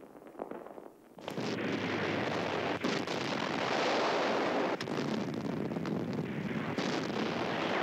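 Artillery fire: about a second in, a dense, steady din of gunfire sets in suddenly, with sharp bangs about every two seconds.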